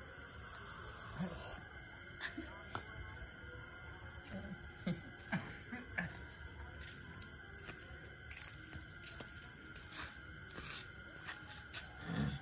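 Insects chirping steadily in an even pulsing rhythm, with a few faint short clicks and knocks scattered through it.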